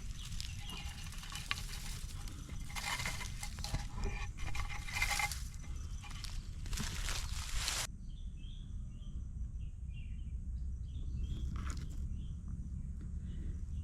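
Irregular rustling and crunching in dry forest-floor leaves, then, after an abrupt cut about eight seconds in, short faint chirping calls of small forest creatures over a steady low rumble.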